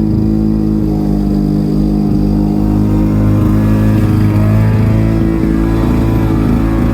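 Lawn mower engine running steadily at speed, with only slight changes in pitch.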